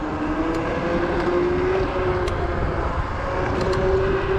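Zero 10x electric scooter's hub motor whining under way, its pitch drifting slowly up and down with speed, over a low rumble of wind on the microphone.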